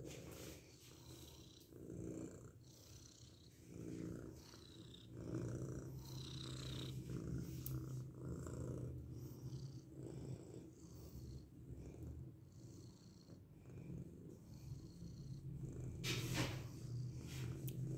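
Grey tabby cat purring while being stroked, a low rumble that swells and fades about every second and a half.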